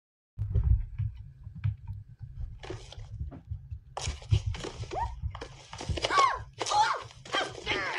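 Animated film soundtrack playing from a computer's speakers and picked up in the room: character voices from about four seconds in, over a low rumble, with a few light knocks before them.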